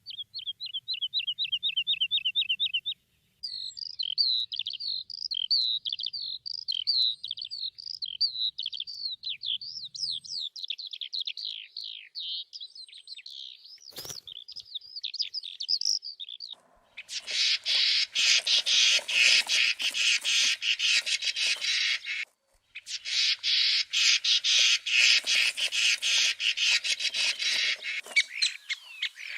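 Songbird recordings joined one after another: first a fast, even trill for about three seconds, then a long, varied warbling song. A single sharp click comes partway through the warbling song. The loudest part is two long stretches of dense, harsh, rattling chatter, separated by a short break.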